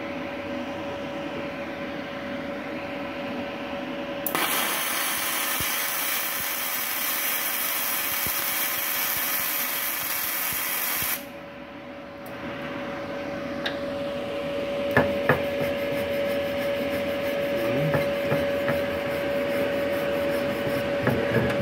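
Gasless flux-core MIG welding arc from a Multipro MIG-MAG 200 G-SP inverter welder, burning with a loud, even hiss from about four seconds in and cutting off suddenly some seven seconds later. From about fifteen seconds in, a brush scrubs the fresh weld beads in quick scratching strokes, with a steady tone underneath throughout.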